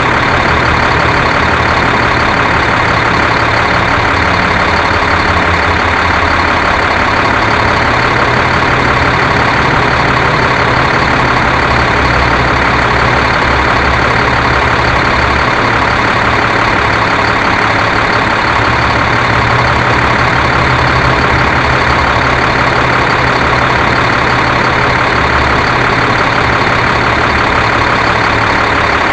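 Quadcopter drone's motors and propellers running steadily, a loud unbroken whir with rumbling buffeting low underneath.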